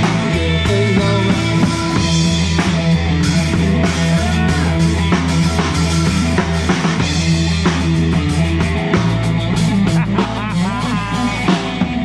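Live rock band playing: electric guitars and a drum kit over a steady, low bass line, with wavering high notes around the middle and again near the end.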